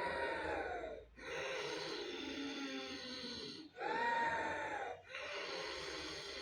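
A woman making deliberate snoring sounds through the throat on every breath, with mouth closed and tongue pressed to the palate, as a yogic anti-snoring kriya. Short, louder snores of about a second, rising and falling in pitch, alternate with longer, steadier ones of two to three seconds.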